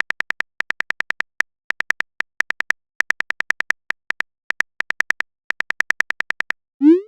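Simulated phone-keyboard typing clicks from a texting-story app: identical short electronic ticks in quick word-length runs of three to six with brief pauses between. Near the end a short rising blip sounds as the message is sent.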